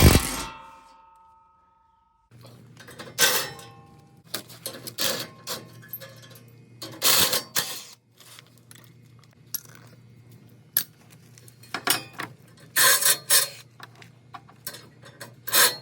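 Metal-on-metal clanks and clinks of a socket wrench and steel bolts being worked off a truck's brush guard. A sharp clank at the start rings briefly, then scattered knocks and clinks follow, with a cluster about three-quarters of the way through.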